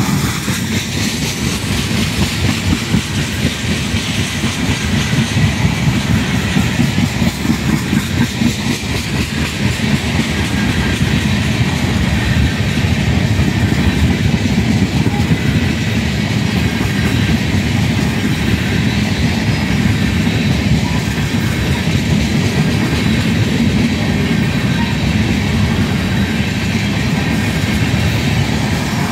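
Freight train of tank cars passing close by: a loud, steady rumble of rolling cars with the rapid clicking of steel wheels on the rails.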